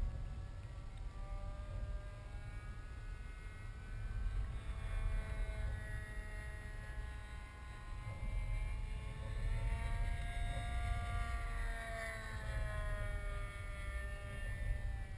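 Wind rumbling on the microphone, with a distant engine droning faintly, its pitch slowly rising and falling over several seconds.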